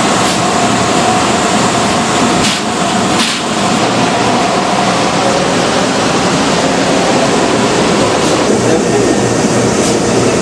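Loud, steady noise of industrial laundry machinery running, such as flatwork ironers and washers, with a faint steady hum and a few short clicks.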